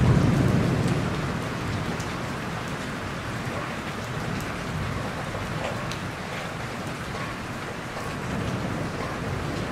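Steady rain falling, with individual drops ticking here and there. A low rumble fades away in about the first second.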